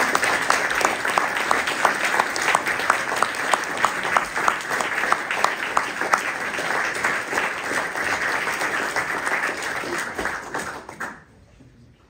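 An audience applauding, with one nearby person's claps standing out at about three a second. The applause stops fairly abruptly about eleven seconds in.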